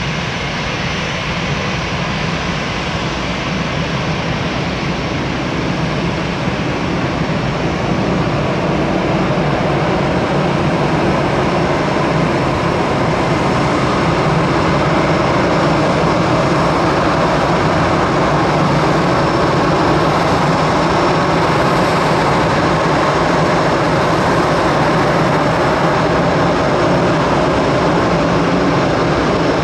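Diamond DA-42 Twin Star's twin propeller engines running steadily, growing somewhat louder about eight seconds in.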